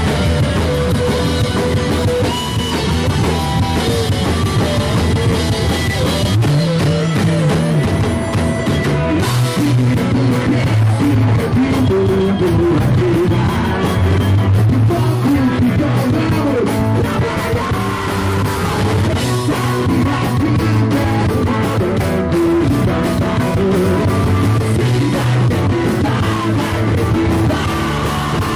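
Rock band playing live, with electric guitars, a drum kit and singing.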